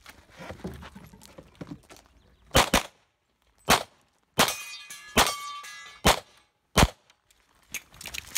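Pistol fire in a practical-shooting stage: about seven shots at uneven spacing, starting about two and a half seconds in, and steel targets ringing after some of them.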